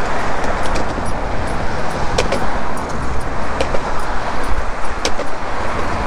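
Steady road traffic of cars passing close by on the bridge roadway, with a few short clicks over it.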